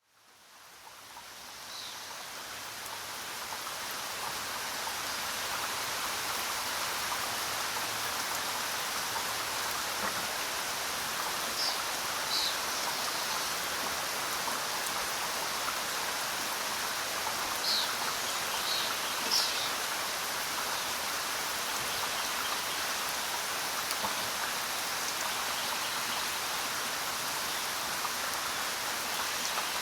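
Steady rain falling, fading up from silence over the first few seconds, with a few short, high bird chirps scattered through the middle.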